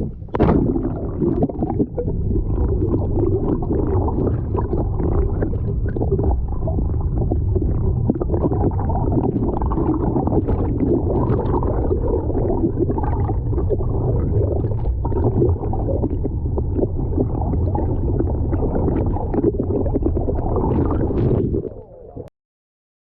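Muffled underwater rumbling and gurgling of water rushing around a camera held below the surface. It cuts off abruptly near the end.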